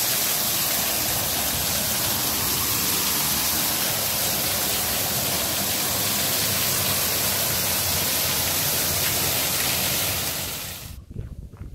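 Small waterfall: a curtain of water pouring off a stone ledge into a pond, heard close up as a steady, loud splashing rush. It cuts away suddenly near the end.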